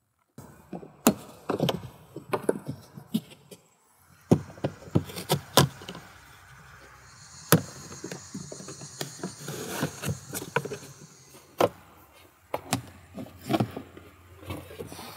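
C7 Corvette interior trim and parts being taken apart by hand: irregular clicks, knocks and clatter, with a scraping hiss for a few seconds in the middle.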